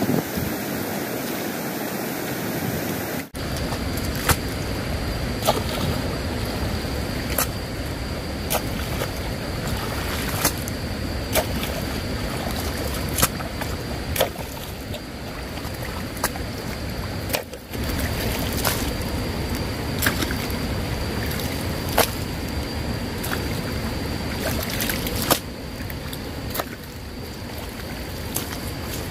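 Sharp knocks repeating roughly every one to two seconds over a steady rushing noise, with a faint steady high-pitched tone behind them.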